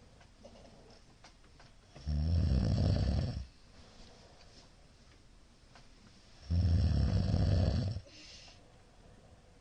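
A middle-aged man snoring loudly in his sleep: two long snores, each over a second, about four and a half seconds apart, with a short breathy hiss just after the second.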